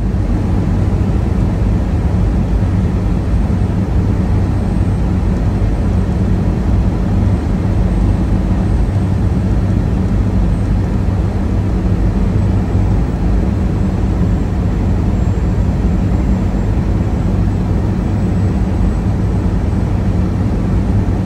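Semi-truck's diesel engine running, a steady low drone with road and cab noise that holds at the same level throughout.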